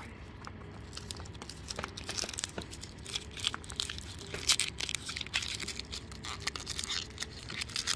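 Paper release liner of a self-adhesive foam sealing tape crinkling and tearing as it is picked at and peeled, while the pre-compressed foam tape is unwound from its roll: irregular small crackles, denser from about three seconds in.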